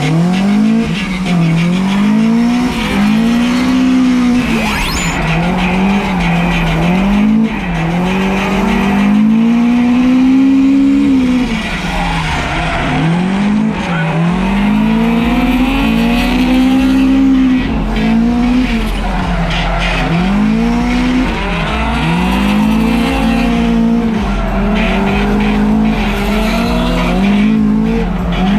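A Toyota AE86 Corolla drift car's four-cylinder engine revving hard, its pitch climbing and dropping again and again as the throttle is worked through a drift, with tyres squealing and skidding.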